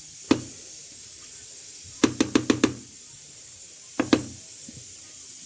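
Hard knocks of kitchen ware against a hard surface over a steady hiss. There is a single knock, then a quick run of about six knocks about two seconds in, and two more near the end.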